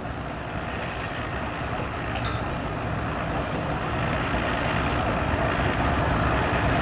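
Motor vehicle engine running with a steady low rumble, growing slowly louder.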